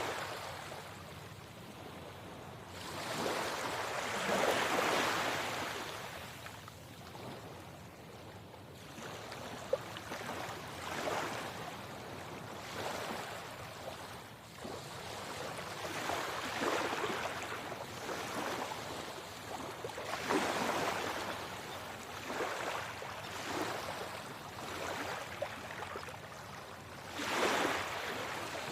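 Sea waves washing in, one surge after another, each swelling and fading over a couple of seconds.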